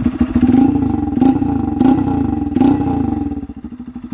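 Single-cylinder four-stroke Honda CG Titan motorcycle engine breathing through a homemade PVC-pipe exhaust, revved in four short throttle blips before dropping back toward idle near the end. The exhaust note is loud, with a strong echo.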